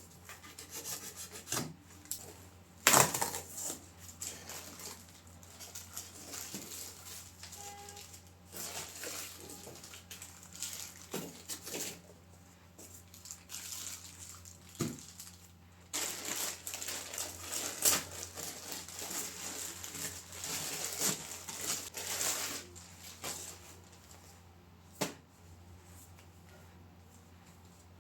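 Hands handling objects: irregular rustling, rubbing and scraping, with a few sharp knocks, the loudest about 3 s in. A faint steady low hum lies underneath.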